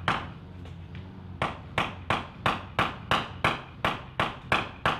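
A hammer knocking small door stoppers into the panel of an IKEA Brimnes flat-pack wardrobe. One strike comes at the start, then after a pause a quick, even run of strikes, about three a second, begins about a second and a half in.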